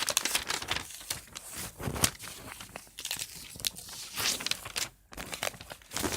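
A sheet of paper being folded and handled, with irregular crinkling and rustling crackles and sharp crease sounds.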